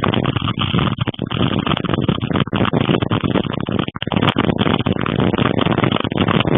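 Gusty wind buffeting the microphone in a loud, rough rush that surges and drops from moment to moment.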